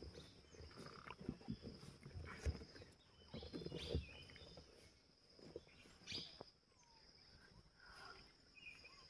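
Quiet forest ambience: a steady high-pitched insect drone, a few short bird chirps, and scattered low knocks and rustles, the loudest about two and a half and four seconds in.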